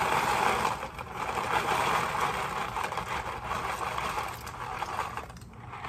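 Dry tri-colour rotini pouring out of a cardboard box into a pot of boiling water: a continuous rattling rush that wavers and dips briefly near the end.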